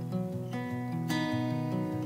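Background music of a plucked acoustic guitar, with a new chord struck about a second in.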